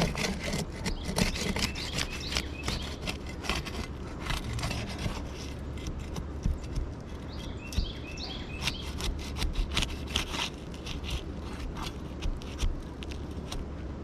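Asphalt roof shingle being pried and worked loose by hand: repeated scraping, rubbing and crackling strokes as its sealant strip is broken free of the shingle below.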